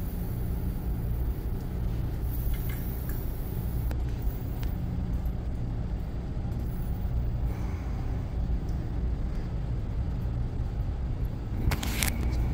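Steady low hum and rumble of machinery, with a short burst of noise near the end.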